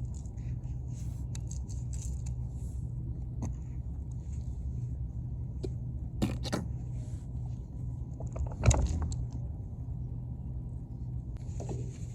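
Mini excavator's diesel engine running steadily, with scattered light clicks and scrapes on top and one sharper knock a little before nine seconds in.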